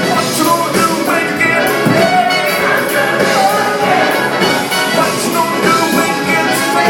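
Live band music with brass horns playing over a steady beat.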